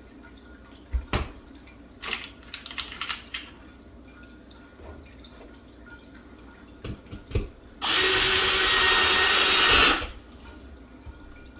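Power drill running for about two seconds near the end, driving a screw to fasten a shelf board to the wall. It is preceded by a few short knocks and clatters of handling the board and tools.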